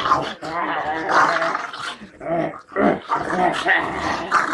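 A dog growling and grumbling in rough, throaty stretches while play-fighting, with brief breaks about halfway through.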